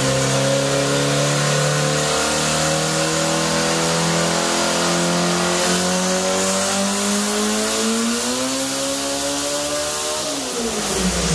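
1987 VW Jetta drag car's turbocharged 2.0-litre methanol four-cylinder engine on a dyno pull, its revs climbing steadily under load for about ten seconds, then falling away quickly near the end.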